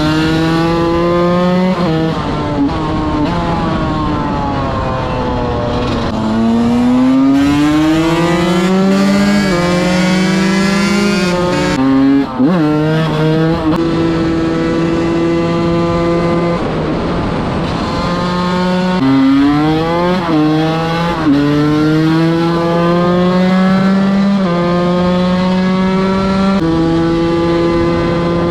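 A 125 cc two-stroke enduro motorcycle engine being ridden hard, revving up and dropping back again and again as it shifts through the gears, with stretches held at steady throttle.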